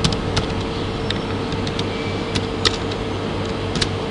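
Scattered computer keyboard keystrokes, a few isolated clicks with the sharpest about two and a half seconds in, over a steady background hiss and low hum.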